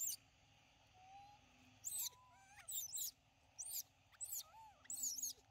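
Infant long-tailed macaques giving a series of short, high-pitched calls, about one every half second to a second, some with lower notes sliding up or down between them.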